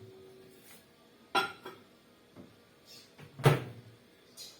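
Microwave door being opened and shut as a mug is put inside: two sharp clunks, the louder one about three and a half seconds in, with a few light clicks between.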